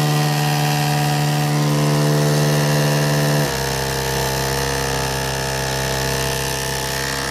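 Washing-machine pump motor of a Gérard Morin pump rig running with a steady electric hum. About three and a half seconds in, the hum shifts suddenly to a lower, slightly quieter tone and runs on.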